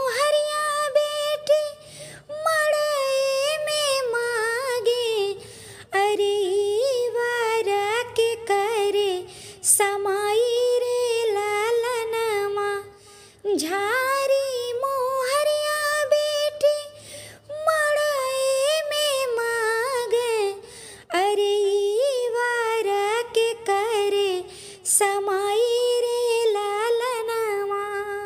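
A woman singing a traditional Awadhi wedding folk song (vivah geet), in phrases of about four seconds with short breaks between.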